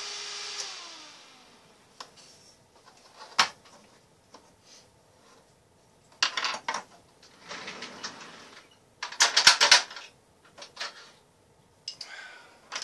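A Sunon PMD 9238 high-speed fan whining steadily, then winding down: its pitch falls and fades out within the first two seconds. After that come clicks and clatter of the fan casing being handled and set down on a wooden bench, the loudest a rattle about nine seconds in.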